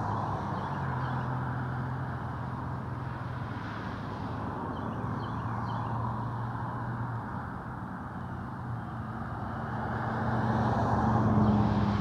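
Passing road traffic: a steady rush of tyres and engines that swells as vehicles go by, loudest near the end, over a low hum.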